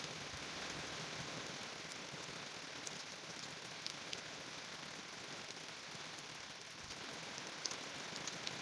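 Steady rain falling, an even hiss with scattered single drops ticking sharply on a surface.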